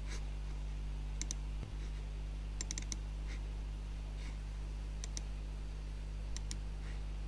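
Computer mouse clicks, single and in quick pairs, a few times over several seconds, over a steady low hum.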